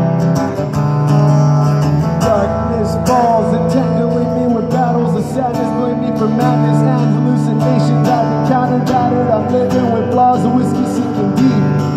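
Acoustic guitar strummed steadily as the intro of a live song, with gliding melodic notes over it from about three seconds in.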